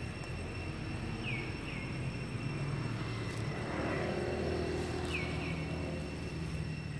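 Outdoor ambience: a low distant engine rumble that swells in the middle and fades again, over a steady thin high whine. Three pairs of short falling chirps come through, one pair about a second in and another near the end.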